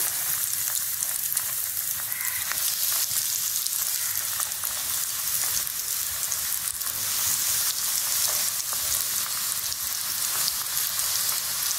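Breadcrumb-coated potato balls deep-frying in hot sunflower oil on a low flame: a steady sizzle with fine crackling.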